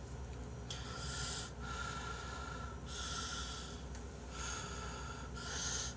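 A man breathing heavily through his nose while chewing a mouthful of noodles, about three long breaths.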